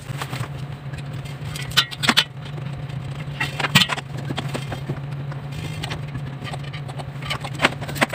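Metal defrost heater rods scraping and clicking against the evaporator coil as they are handled, with a few sharp clicks and scrapes about 2 s in, near the middle and near the end. A steady low hum runs underneath.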